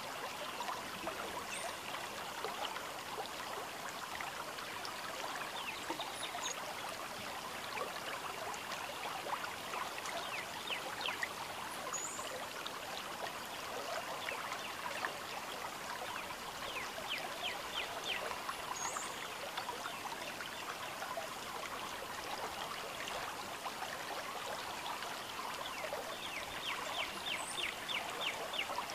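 Steady outdoor ambience, a trickling, crackling hiss like flowing water. A few brief high chirps come through it now and then, and twice there is a short run of quick ticks, about eight a second.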